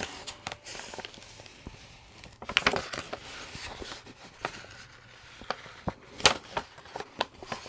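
Plastic protective cover sheet of a diamond-painting canvas crinkling and rustling as it is folded back and pressed flat by hand, with irregular sharp crackles.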